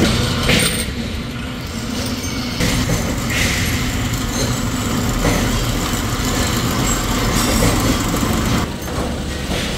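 Steady noise of machine-shop machinery running, with a low hum, and a few short metallic clinks scattered through.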